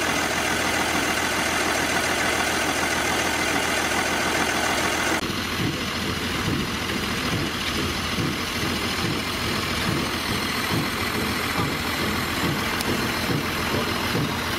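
Gardner 6LW six-cylinder diesel engine running with a dense, bright clatter. About five seconds in, the sound switches to a smaller Gardner diesel idling in a vehicle's engine bay, with a lower, more distinct, evenly repeating beat.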